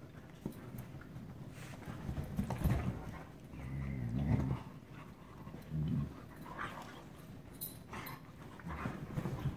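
Two dogs play-fighting, with low play growls in several short bouts, loudest about three and four seconds in, over the scuffle of their wrestling.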